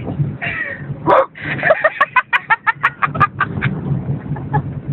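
A woman's voice imitating a dog, with a quick run of short barks about two seconds in.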